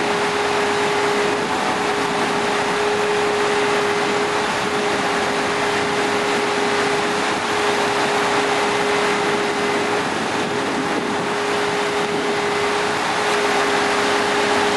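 A machine running steadily, a constant hum over even noise, with no change in speed.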